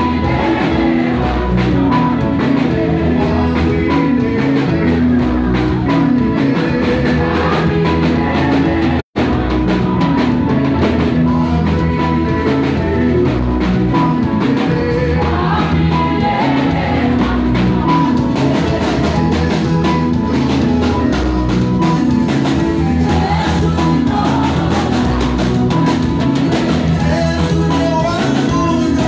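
Live gospel praise music: a lead singer and backing vocalists singing over a band with drum kit, guitar and keyboard. The sound cuts out for an instant about nine seconds in.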